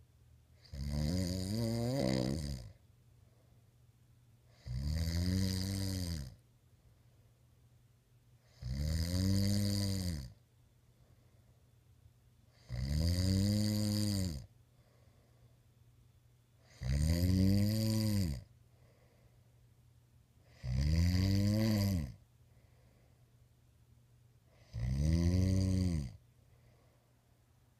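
A man snoring in his sleep: seven snores, one about every four seconds, each a drawn-out pitched breath that rises and then falls in pitch, with quiet between them.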